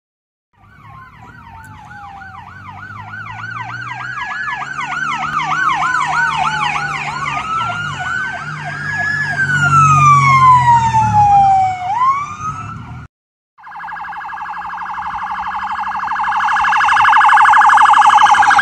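Emergency vehicle sirens: a fast yelp and a slower rising-and-falling wail sounding together, growing louder over engine noise. After a short break, a police car's rapid warbling siren approaches and swells to its loudest near the end as the car passes.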